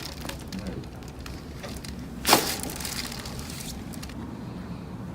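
A single sharp, loud pop about two seconds in as a chiropractic adjustment thrust is delivered, with faint clicks and handling sounds around it.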